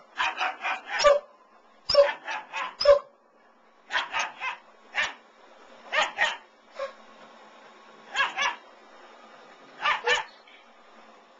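German shepherd puppy barking in short, high yaps, mostly two to four in quick succession, repeated in bursts with brief pauses between.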